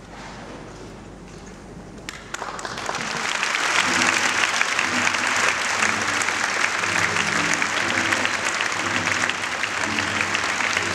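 Audience applauding. A few scattered claps come about two seconds in, then the clapping swells into full, steady applause.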